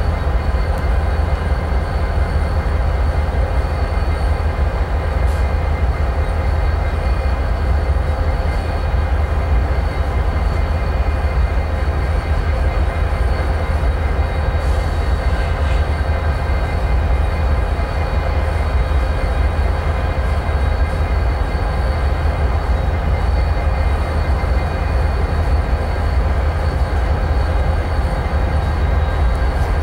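Several BNSF diesel-electric locomotives pulling a double-stack container train, approaching with a steady, loud rumble that holds without a break.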